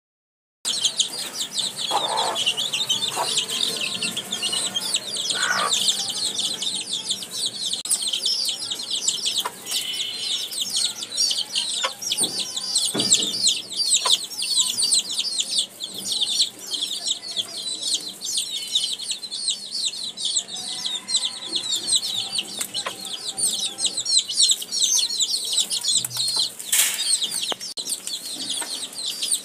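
A brood of baby chicks peeping nonstop, a dense chorus of high-pitched cheeps, with a few low clucks from the mother hen.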